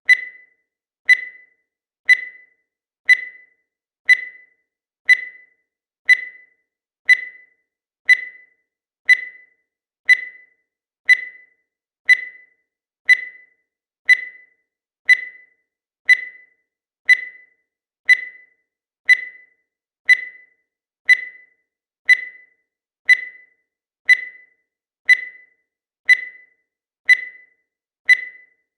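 Digital timer beeping once every second: short, high electronic beeps in a steady rhythm, each fading away quickly.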